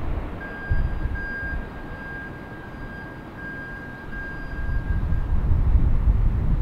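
Cessna Citation Latitude business jet's turbofan engines running as it rolls along the runway. A low rumble grows louder from about four seconds in, with a thin steady whine over it for the first five seconds.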